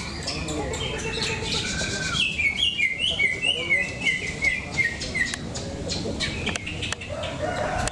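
Caged green leafbirds (cucak ijo) singing in competition: a quick run of high chirping notes through the middle, with many short sharp clicking calls around it.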